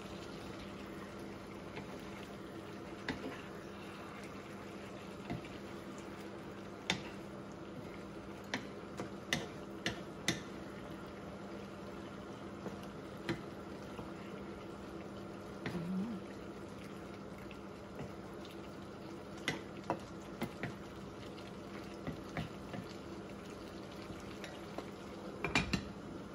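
Chicken livers simmering in adobo sauce in a frying pan, a steady bubbling over a low hum, with scattered clicks of a wooden spoon against the pan as it is stirred. Near the end a short clatter as a glass lid is set on the pan.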